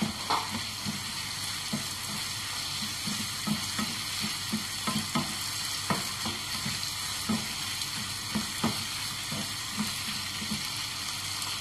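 Chicken, green capsicum and carrot sizzling steadily in a non-stick frying pan while a wooden spatula stirs and scrapes through them, with repeated soft knocks of the spatula against the pan, a few each second.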